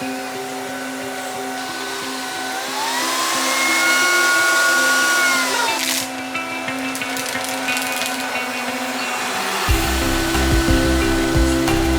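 LG CordZero robot vacuum cleaner running, its motor whine rising about two seconds in, holding, and dropping back near six seconds. A lower rumble with uneven knocks starts near the end.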